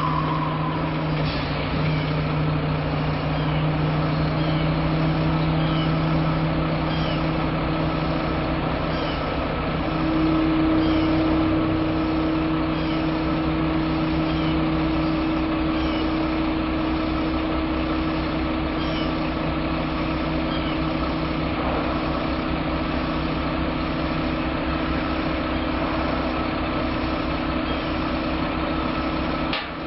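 Heavy dump truck's diesel engine running steadily while its hydraulic hoist raises the dump bed to unload, getting a little louder about ten seconds in.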